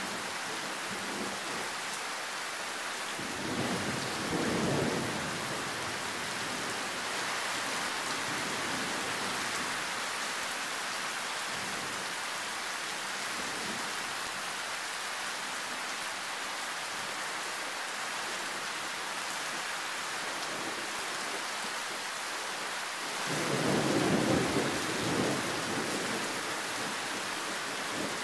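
Heavy tropical rain falling steadily and loudly, with two low rolls of thunder: a shorter one a few seconds in and a louder, longer one near the end.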